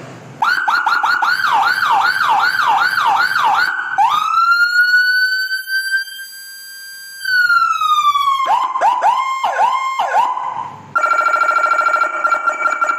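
Electronic siren from an M200 siren module, sounding without its low-frequency unit, stepping through its tones: fast repeating sweeps about three a second, then a slow wail that rises, holds and falls, then quick sweeps again, and near the end a rapid warbling tone.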